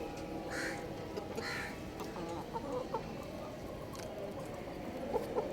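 Chicken clucking in short, soft calls, a few around two to three seconds in and more near the end, with two brief hissing noises in the first two seconds.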